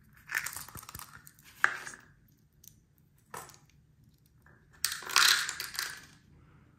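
Small plastic watchmaking hand-setting tips rattling in a clear plastic cup and being shaken out into the hand, with sharp clicks as pieces tap together. A louder clatter of handling comes near the end.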